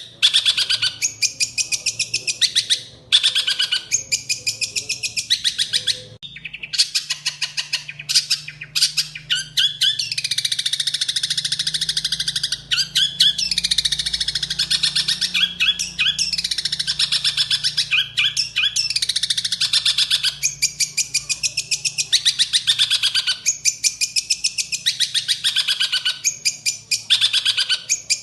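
Songbird singing: rapid, repeated high chirps and trills in a dense run, with a short break about six seconds in.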